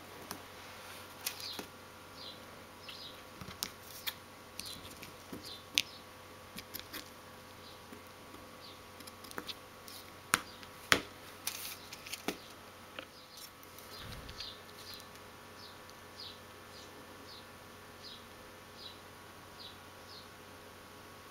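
Small craft scissors snipping paper, and tools clicking and tapping on a tabletop: scattered sharp clicks, the loudest two close together about halfway through. A faint high chirp repeats steadily behind them.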